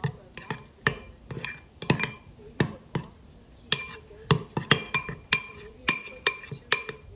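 Spoon knocking against the side of a glass bowl while stirring a thick, creamy whipped mixture: sharp clinks about two to three times a second, from about halfway on many of them ringing briefly.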